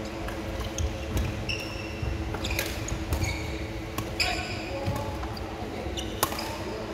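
Badminton rally in a large hall: sharp racket-on-shuttlecock hits, the loudest near the end, mixed with short high squeaks of court shoes on the wooden floor. A steady low hum runs underneath.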